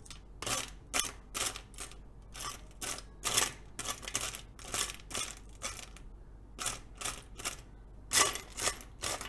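Small metal screws clicking and rattling against each other and a plastic box as a hand sorts through them for the right one: a run of light, sharp clicks, about two a second.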